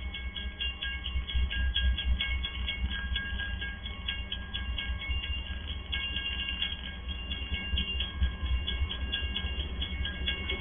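Level-crossing warning bell ringing rapidly and steadily, about four to five strikes a second, over a low rumble from the approaching train.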